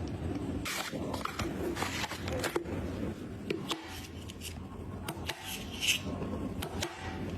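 Irregular clicks, taps and scrapes of PC components being handled and fitted during assembly, over a low steady hum.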